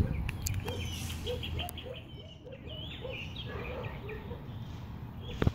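A bird calling outdoors in a quick run of short, repeated chirps, about four a second, with a sharp knock near the end.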